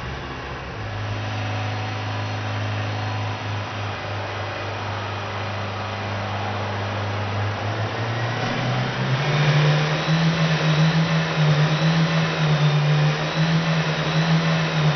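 Motor running with a steady low hum that steps up in pitch and gets louder about eight seconds in.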